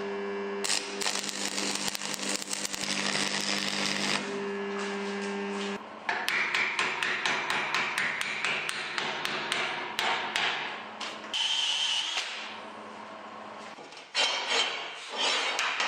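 Welding arc crackling irregularly in short runs with pauses, over a steady electrical hum that stops about six seconds in.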